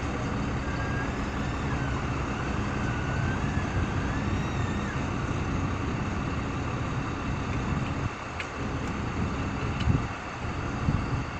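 Heavy vehicle engine running steadily with a low rumble, most likely the aerial ladder truck's engine powering the raised platform. A few sharp knocks come near the end.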